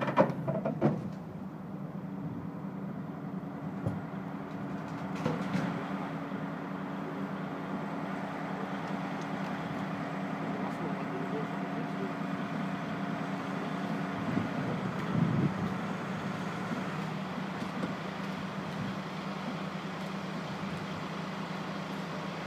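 Heavy truck diesel engine running steadily at idle, with a knock at the start and a brief clatter about fifteen seconds in. One of its higher tones drops away shortly before the clatter.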